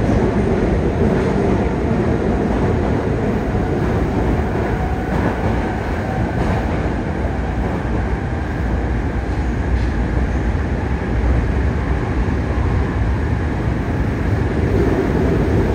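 Yokohama Municipal Subway Blue Line 3000N-series train running through a tunnel, heard inside the car: a steady, loud rumble of wheels on rail and running gear.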